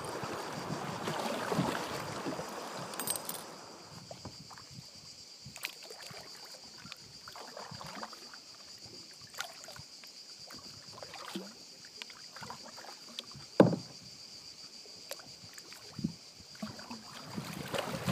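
Canoe moving down a river: water rushing past the hull for the first few seconds, then quieter paddle dips, splashes and drips, the loudest about two-thirds of the way through. A faint steady high whine runs underneath.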